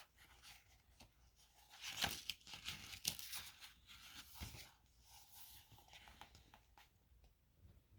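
Faint paper rustling as the pages of a picture book are handled and turned, mostly about two to five seconds in, with a few small clicks.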